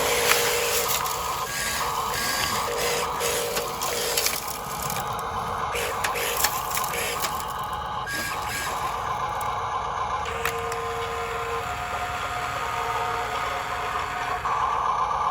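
Small electric motors and gears of toy construction vehicles whirring, with rattles and clicks and short, repeated beeping tones in the first few seconds.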